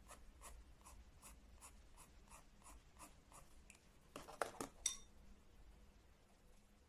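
Watercolour pencil scratching on watercolour paper in short back-and-forth strokes, about three a second, faint. A few louder taps about four to five seconds in, then it stops.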